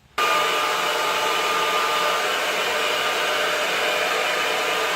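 Toni & Guy hair dryer blowing hair dry: a steady rushing of air with a thin whine, starting abruptly and cutting off suddenly at the end.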